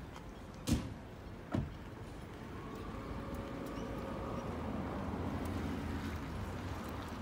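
Two sharp knocks about a second apart, then a motor that grows louder and fades slowly as it passes by.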